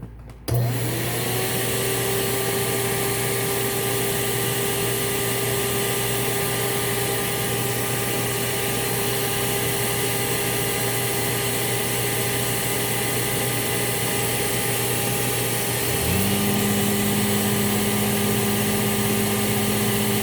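Hoover S3639 WindTunnel Plus canister vacuum's motor switched on, spinning up within a second to a steady whine. About 16 s in, the power head's motor is switched on and joins with a lower hum, and the overall sound gets a little louder.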